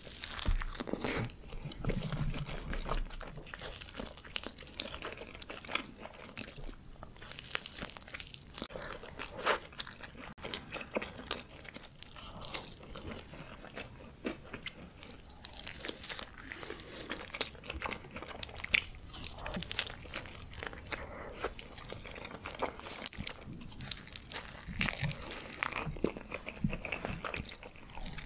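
Close-miked eating: bites into burritos and steady chewing, with many small crunchy clicks and crackles throughout.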